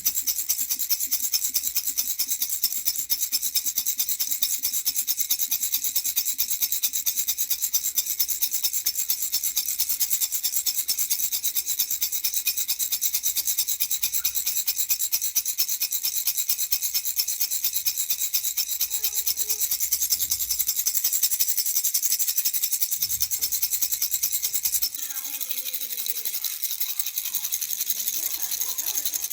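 Baby rattle (jhunjhuna) shaken rapidly and continuously, a dense high-pitched rattling. It turns a little softer near the end.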